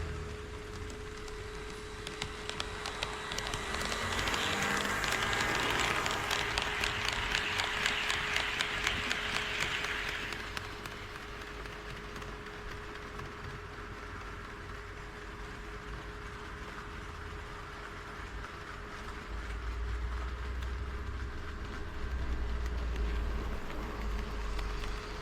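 HO scale model train running past on KATO Unitrack, its wheels clicking rapidly over the rail joints. The clicking swells to its loudest a few seconds in and then fades away, over a steady hum.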